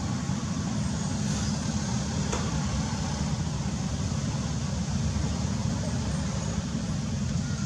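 Steady low rumbling background noise with no distinct event, and a faint click about two seconds in.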